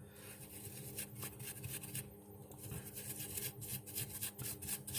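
Faint scratching strokes of a small metal tool scraping on a phone's circuit board, coming several a second from about three seconds in, over a steady low hum.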